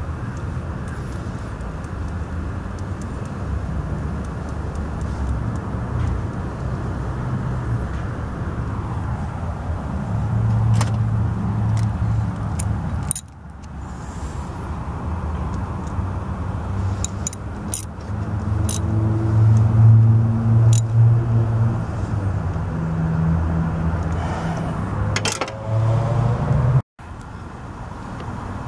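A steady low engine-like rumble that swells and fades, with scattered light metallic clicks and jangles. It breaks off abruptly twice.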